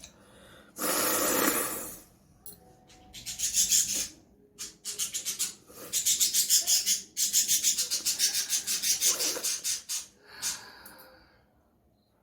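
A person blowing hard through the nose: one long blow about a second in, then runs of short, rapid puffs, about five a second, lasting several seconds.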